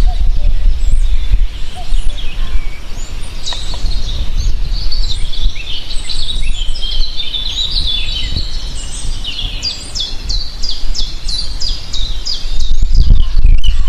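Several songbirds chirping and singing together, one of them repeating a quick down-slurred note about four times a second for a few seconds in the latter half, over a steady deep rumble.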